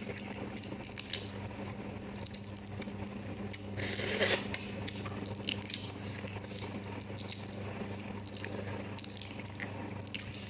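Close-miked eating of balut duck eggs and vegetables: wet chewing and biting mouth sounds with small clicks, and a louder bite about four seconds in. A steady low hum runs underneath.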